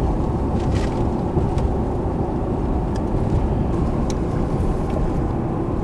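Steady road and engine noise heard from inside the cab of a pickup truck driving at speed, with a few faint clicks.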